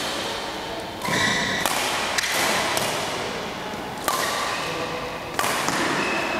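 Badminton rally: a racket strikes the shuttlecock three times, about a second in, near four seconds and again just after five, each a sharp crack ringing in a large hall. Short squeaks of court shoes on the floor come between the hits.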